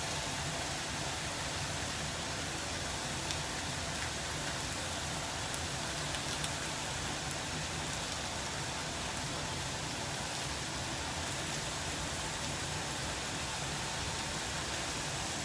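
Food frying in a pan: a steady sizzling hiss with a few faint crackles.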